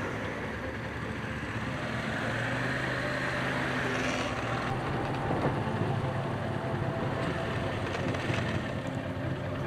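Motorcycle engine running as the bike pulls away and rides along the road, with road and traffic noise.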